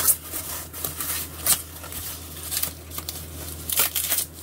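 Thin white foam packing wrap and a plastic bag being pulled open and handled, giving irregular crinkling rustles.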